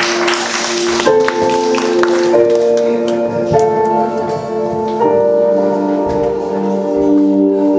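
Slow music of held keyboard-like chords that move to a new chord about every second or so.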